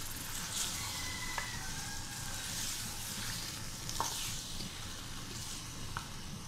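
Raw chicken pieces sizzling steadily in hot oil in a metal wok as they are stirred with a wooden spoon, with three light knocks of the spoon against the pan.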